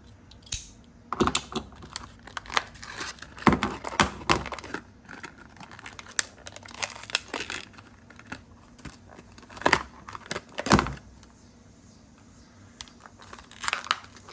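A thumbwheel ratchet being taken out of its packaging: crinkling and tearing of the package, with scattered sharp clicks and knocks as the pack and tool are handled.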